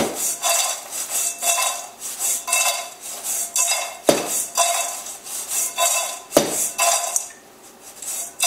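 Seasoned fries being tossed in a stainless steel mixing bowl: a rhythmic rattle and scrape of fries sliding around the metal bowl, about two strokes a second, with a few sharper knocks and a short lull near the end.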